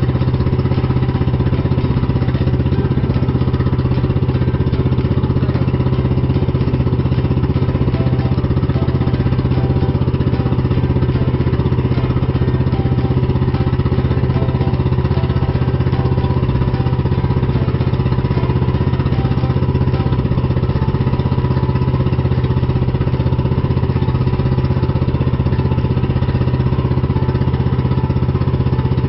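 Pump boat's engine running steadily at a constant speed while the boat is under way, with a loud, even low hum that does not change.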